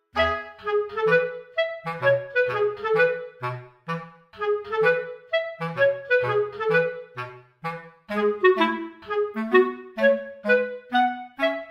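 Background music: a bouncy melody of short woodwind-like notes over a bass line, in steady phrases.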